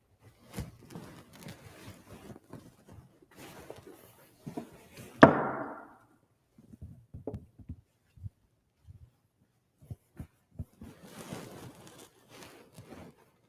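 Soft shuffling, rustling and footsteps in a church as the altar server moves about the altar, with scattered small knocks. About five seconds in comes one sharp thud that rings on for over half a second.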